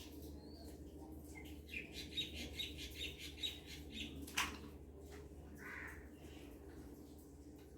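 Birds chirping faintly in a quick run of short high calls, over a steady low hum, with a sharp click about four seconds in.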